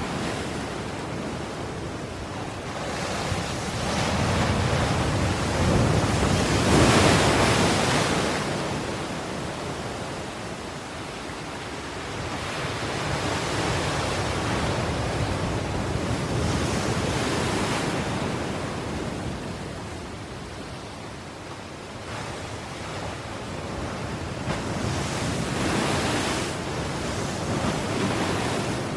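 Ocean waves breaking and washing in, a steady rush of surf that swells and fades slowly about three times.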